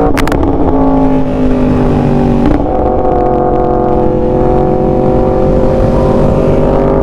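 Sportbike engine running at steady speed under way, its pitch holding, then changing about two and a half seconds in and slowly rising through the rest, over a constant low rumble.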